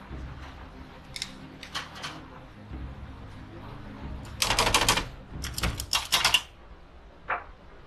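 Small hard objects being handled on a table: a few separate clicks, then two quick runs of rapid clicking about halfway through, and a last single click near the end.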